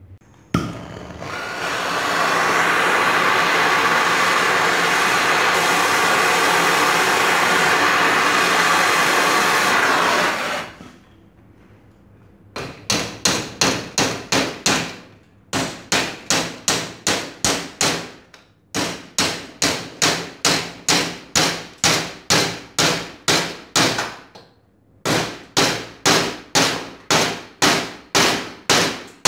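A steady machine noise runs for about ten seconds and stops. Then a hammer strikes a metal strip clamped in a bench vise, about two to three blows a second in runs with short pauses, each blow ringing briefly.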